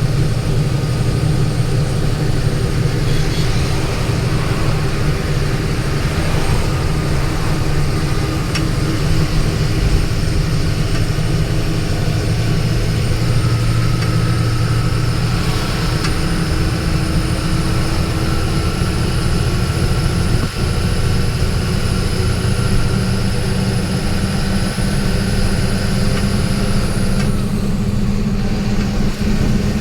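Steady engine and road noise from inside a moving vehicle, with a low drone. A thin high whine comes in about halfway through and cuts off near the end.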